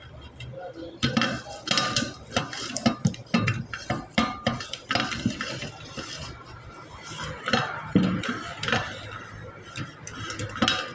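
Small metal parts and hand tools clinking and knocking irregularly against each other during hand work on a truck brake servo and its valve.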